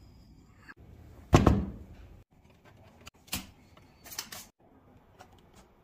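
A sharp clunk about a second in, then a few lighter clicks and taps as a screwdriver works the screws in the metal case of an Audi A6 3G head unit.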